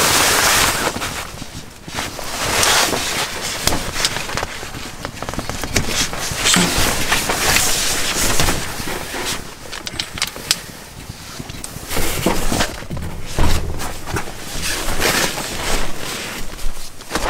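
Folding camp cot being assembled: canvas rustling and being pulled taut, with repeated sharp clicks and clunks from its frame as the end bars are levered into place.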